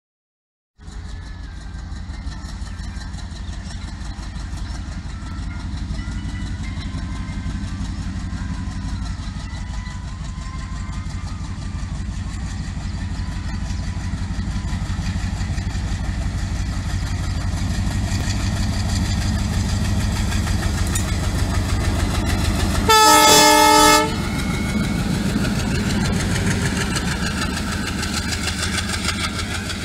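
An ALCo WDM3A diesel locomotive's 16-cylinder 251 engine chugging as it approaches at speed hauling an express train, growing gradually louder. About two-thirds of the way through, a one-second blast of the locomotive's horn is the loudest sound.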